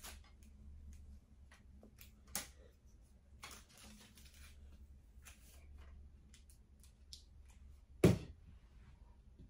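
Light clicks and rattles of a tripod being handled as its legs and head are adjusted and fitted together, with one sharp knock about eight seconds in.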